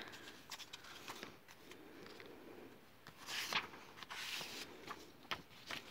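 Faint rustling and sliding of thin paper-covered Midori MD Light notebooks being handled, with small ticks and two louder brushes of paper about three and four seconds in.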